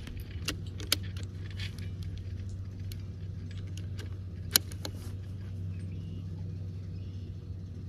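The bolt of a CZ 457 .22 rimfire rifle being worked, a few light metallic clicks in the first two seconds, then one sharp crack about four and a half seconds in. A steady low hum runs underneath.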